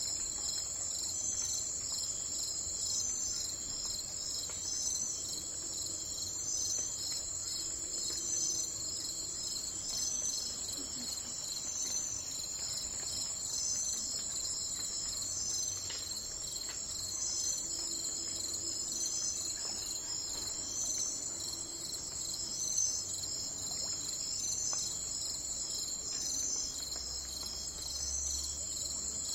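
Chorus of insects trilling steadily and high-pitched, with a short chirp repeating about every second and a half.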